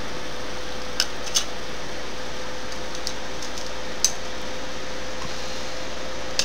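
Small sharp clicks and taps of a phone's circuit board and plastic housing being handled and fitted together, about five in all, over a steady hiss with a faint steady hum.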